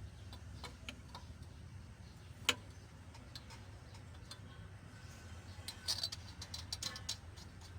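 Light metallic clicks and taps of a camshaft sprocket and hand tools being handled as the sprocket is fitted to a 4D56 cylinder head, with one sharper knock about two and a half seconds in and a quick run of clicks near the end, over a low steady hum.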